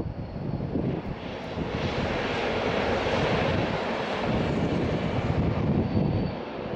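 Diesel-hauled passenger train passing, the locomotive's engine running under a steady hiss of the train on the track. The sound swells about a second and a half in and eases off after about five seconds.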